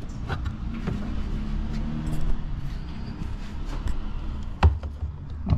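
Jeep Renegade running, heard from inside the cabin as a steady low hum, with a single sharp knock about four and a half seconds in.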